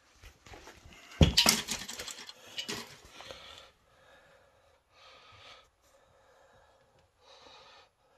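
Metal clanking and rattling on a concrete floor for about two seconds, the loudest clank at the start, followed by a few soft breaths.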